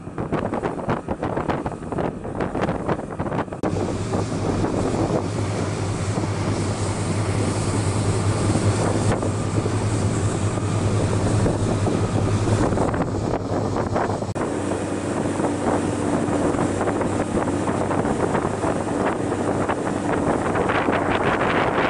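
Motorboat engines running at speed as a steady drone, with wind buffeting the microphone and water rushing past the hull. The engine tone changes pitch about 14 seconds in.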